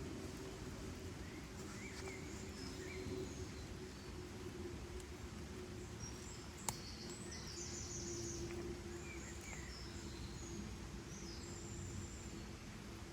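Outdoor nature ambience: short, high bird chirps scattered over a steady background hiss, with a faint steady low hum underneath. There is one sharp click about seven seconds in.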